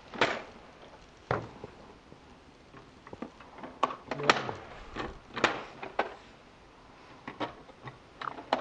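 A series of sharp knocks and clicks, unevenly spaced, each one brief.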